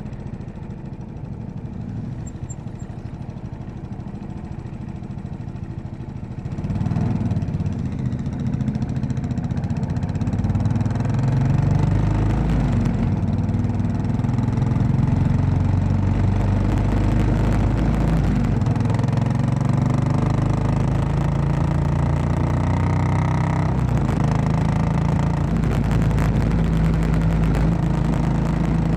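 Royal Enfield Classic 500's single-cylinder engine running under way as the motorcycle is ridden, getting louder about a quarter of the way in and later rising steadily in pitch as it accelerates before dropping back.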